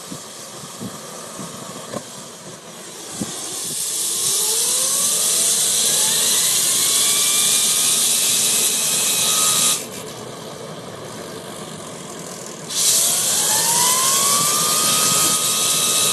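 Homemade axial-flow jet engine spooling up twice. A whine rises in pitch and levels off under a loud rushing hiss. The hiss cuts off abruptly about ten seconds in, and a few seconds later the hiss and the rising whine start again, ending near the end.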